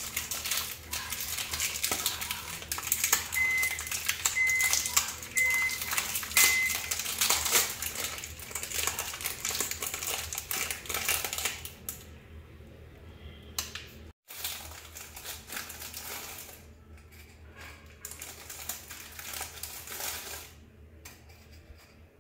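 Foil-lined Britannia Marie biscuit packet crinkling and crackling as it is handled and biscuits are taken out. The crackle is dense for the first half, then thins to occasional rustles.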